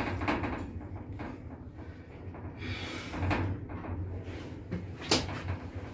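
Modernized KON-REM passenger elevator car travelling upward: a low steady running hum with scattered clicks and knocks from the car and its equipment, and one sharp click about five seconds in.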